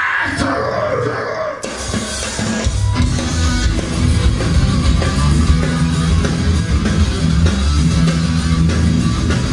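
Loud rock music with guitar and drums, starting suddenly about two seconds in and playing on steadily.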